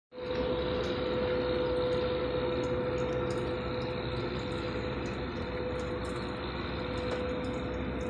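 Vacuum street-sweeper truck running with a steady whine over a low rumble.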